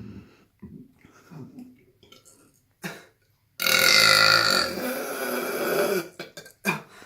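A long, loud deliberate burp from a person, starting about halfway in and lasting about two and a half seconds, with a few faint low noises before it.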